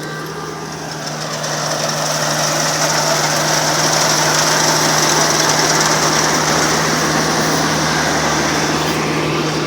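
Kubota R1-301 combine harvester running, its engine hum steady under the dense clatter and rush of the working machinery, which grows louder about one and a half seconds in and then holds.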